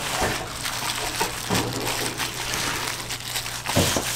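Hands in thin plastic gloves squishing and kneading a soft mashed potato-and-egg croquette filling in a plastic tub, with the gloves crinkling, over a steady low hum; one thump near the end.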